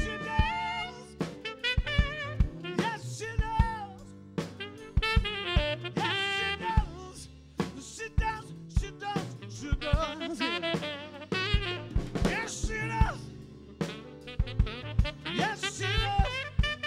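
Live rock band playing an instrumental passage: a drum kit keeping a steady beat under a lead instrument playing a melodic line that bends in pitch.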